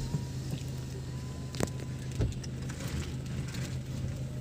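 Ford EcoSport heard from inside the cabin while driving: a steady low engine and road hum, with a couple of light clicks about one and a half and two seconds in.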